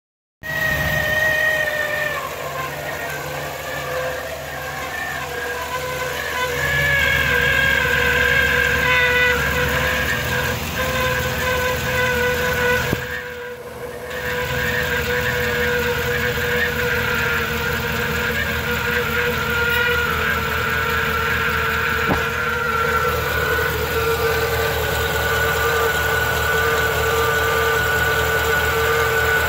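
A GM van's engine running, with a steady whine from under the hood over the low engine hum; the whine drifts slightly lower in pitch over the first several seconds.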